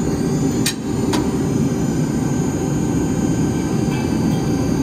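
Electric U-bolt-making machine running with a steady low hum, with sharp metal clacks about a second in and again near the end as a steel rod is set against the die.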